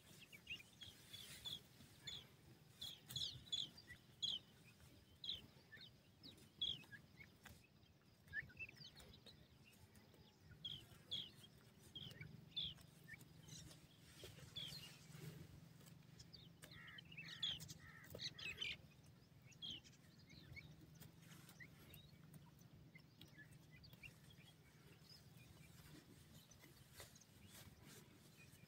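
Grey francolin chicks peeping: short, high chirps in quick runs, thinning out about two-thirds of the way through.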